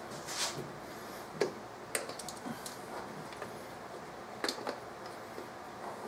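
Spark plug wire boots being handled and pushed onto the terminals of a new distributor cap on a Chevy 327 small block, giving a few scattered sharp clicks and light knocks.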